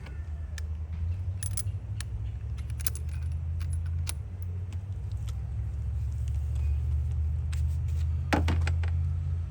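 Small metal parts and hand tools clinking and clicking as an engine ignition coil pack is handled, in scattered sharp clicks with a cluster near the end, over a steady low hum.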